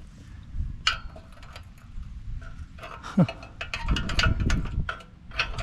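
Wrench working a bolt through a slot in a steel loader quick-attach adapter: a string of irregular metallic clicks and taps as the wrench is set on, turned and shifted.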